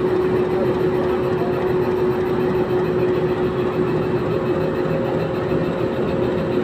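Meter-gauge diesel locomotive's engine running steadily as the locomotive moves slowly past. A steady hum sits over the engine rumble and fades out about two-thirds of the way through.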